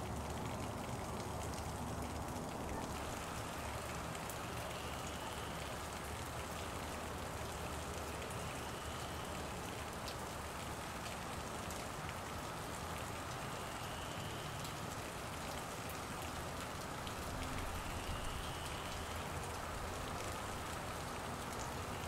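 Steady rain falling, with scattered sharp raindrop ticks.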